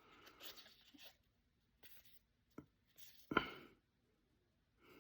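Faint rustling and crinkling of a trading-card pack being opened and its cards handled, with a small click and a brief, louder handling sound about three seconds in.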